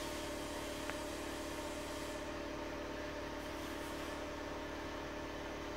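Brushed electric motor of a power tool running steadily with its brush cover off, a continuous hum and whine, with one short click about a second in. Its brushes are sparking on the commutator after being replaced.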